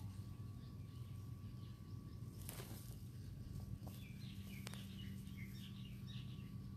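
Quiet outdoor background with a steady low hum and faint bird chirps, broken by a few soft clicks.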